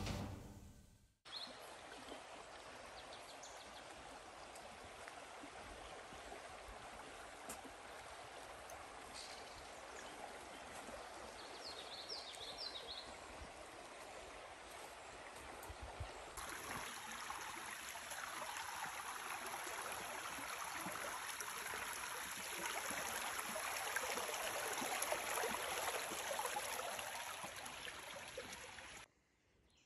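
Steady rushing outdoor noise like a running stream. It cuts in about a second in, grows louder after a cut about sixteen seconds in, and stops just before the end.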